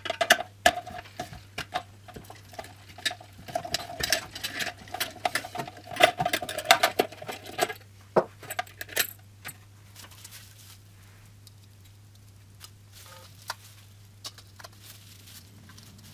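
Bulb shield cap being twisted and unscrewed from a chrome headlight reflector: rapid metallic clicking with squeaking for about eight seconds. After that the clicks die down to a few light taps of handling.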